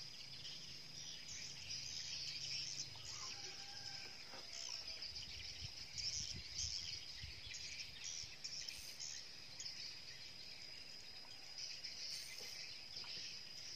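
Insects droning on one steady high note, with birds chirping on and off.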